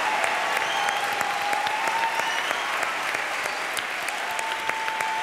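Studio audience applauding: a steady clatter of many hands clapping.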